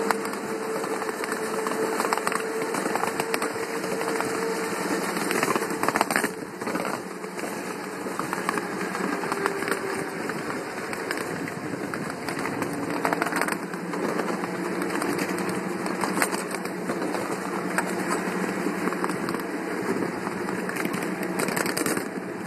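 Ride-on miniature railway train running along the track: steady rolling clatter of the wheels on the rails with a steady hum from the locomotive's drive. Sharp clicks come now and then, the strongest about six and thirteen seconds in.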